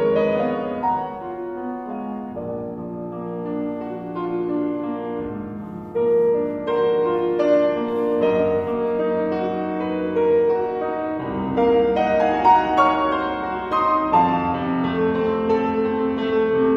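Grand piano played solo, a classical piece with a continuous flow of sustained notes. It grows louder suddenly about six seconds in, and deeper bass notes join from about eleven seconds on.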